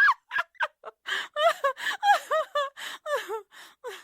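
High-pitched, sped-up cartoon gibberish voice: a rapid run of short chattering syllables whose pitch swoops up and down.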